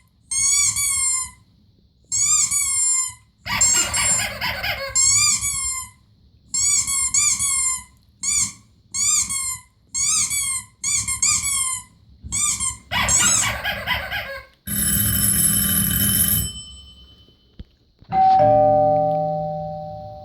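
A string of short, high chirping calls repeated roughly once a second, then a harsh buzzing burst lasting a second or two. Near the end comes a doorbell chime, the loudest sound, which rings and slowly fades.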